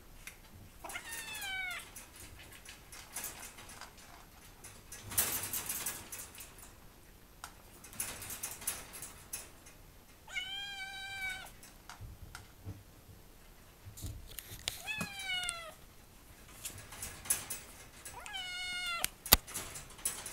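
Kitten meowing four times in a wire cage, about a second in, then after ten, fifteen and eighteen seconds: plaintive calls, mostly falling in pitch, asking to be let out. Between the calls come clicks and light rattles of the cage wire as she climbs and paws at the bars.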